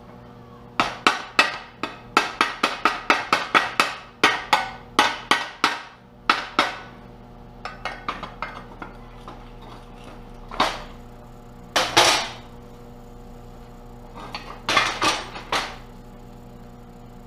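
Rapid metal-on-metal strikes of a chipping hammer against a freshly welded aluminum skid plate, about four a second for several seconds, knocking slag off the stick-welded beads. After that come a few scattered knocks and some louder clanks, over a steady low hum.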